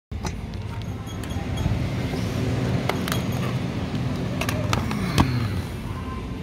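Shop ambience of indistinct background voices, with several sharp clicks and crackles as plastic meat trays are handled.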